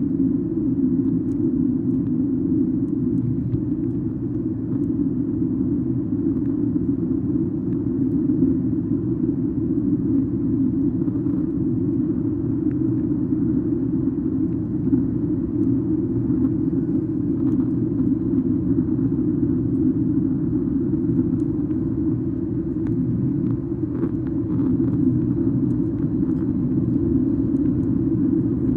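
Steady low cabin rumble of a Boeing 737-8 MAX in flight: the noise of its CFM LEAP-1B engines and the airflow, heard from inside the cabin.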